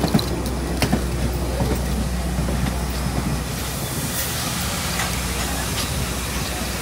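Steam-hauled passenger train rolling past: a steady low rumble with a few sharp wheel clicks early on, and from about halfway through a rising steam hiss as the tender and locomotive come near.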